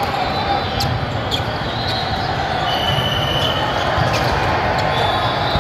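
Busy volleyball hall: a steady din from many courts, with short sneaker squeaks on the sport-court floor about halfway through and near the end, and a few sharp smacks of balls being hit.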